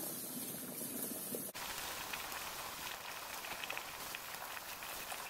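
Potatoes and water at a boil in a large stainless-steel stockpot on a gas stove, a steady bubbling with faint crackles. The sound changes abruptly about a second and a half in.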